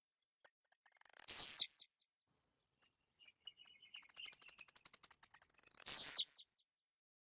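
Blue-black grassquit (tiziu) singing: twice, a run of high, sharp ticks that speed up, ending in a loud note that falls steeply in pitch.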